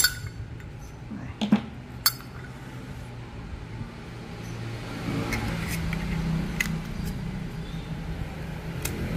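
Metal Zippo lighters clinking and clicking as they are handled, with the sharpest clinks near the start and a second or two in, and lighter ticks later, over a steady low hum.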